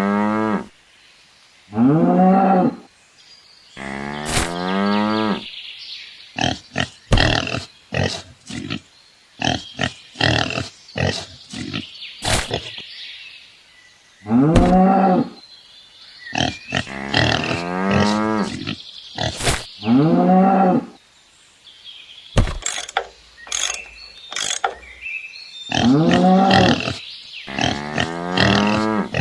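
Cows mooing repeatedly: about seven calls, each about a second long, rising and falling in pitch, with sharp clicks and knocks in between.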